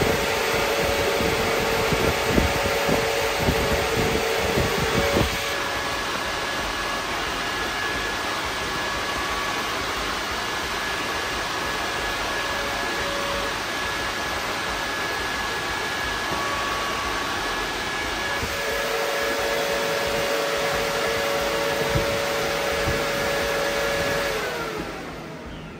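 Two 12-inch Derale and Spal electric radiator fans running at full speed on a 12-volt battery, a steady loud rush of air with a hum, pulling air through a stock single-row radiator. Near the end they are cut off and wind down, the hum falling in pitch as the rush fades.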